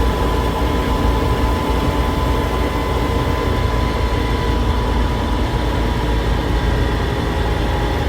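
Kaiser M715 military truck under way in fourth gear, its engine running with a freshly rebuilt Holley 1920 carburettor. The engine drone and road noise hold steady and even, with a steady high tone over them.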